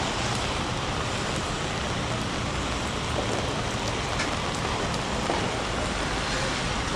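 Heavy rain falling steadily: a dense, even hiss of rain on surfaces with scattered individual drop ticks.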